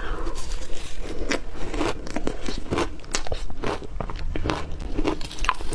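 Ice being bitten and crunched between the teeth: an irregular run of sharp crunching bites, about two or three a second.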